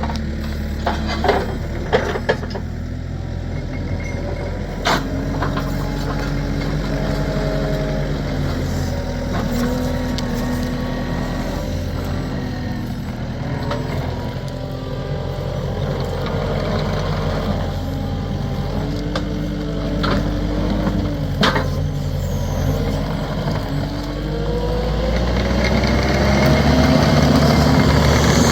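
Heavy machinery running steadily, its pitch rising and falling and climbing near the end, with a few sharp metallic clanks.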